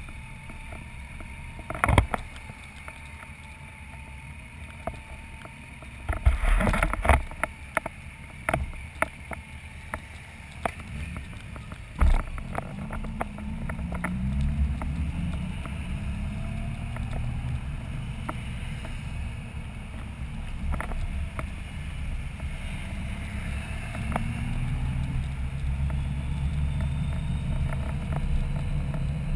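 Touring motorcycle riding down a town street, heard from a camera mounted on the bike: a low rush of wind and road noise with scattered knocks and thumps, loudest at about 2, 6 to 7 and 12 seconds in. From about 13 seconds the engine's hum comes up and rises in pitch several times as the bike speeds up.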